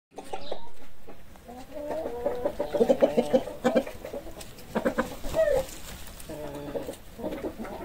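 Chickens clucking in a series of short, repeated calls.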